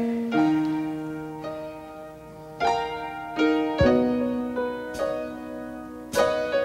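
Piano or keyboard playing a slow gospel accompaniment: sustained chords struck about once a second and left to ring, with a low thump beneath a chord twice.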